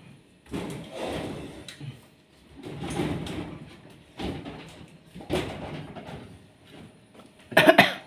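Knocks, bumps and scrapes of handling around a refrigerator, repeated every second or so, with a loud sharp clatter near the end.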